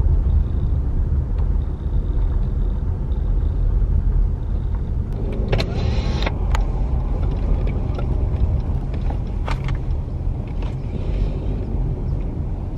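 Car driving slowly, heard from inside the cabin: a steady low rumble of tyres and engine, with a brief whir about halfway through and a few light clicks after it.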